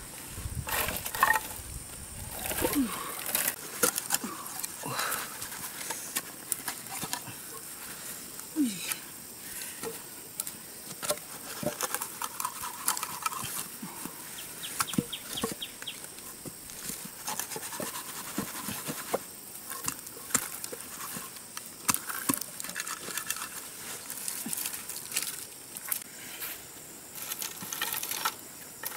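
Irregular clicks, taps and rustling from hands working: a fish being cleaned and scaled over a jackfruit, and bamboo poles and dry sticks being handled.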